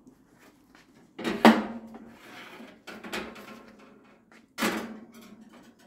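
A glass baking dish is set onto a countertop toaster oven's wire rack, with three clanks and scrapes between them, the loudest about a second and a half in; the last may be the oven door closing.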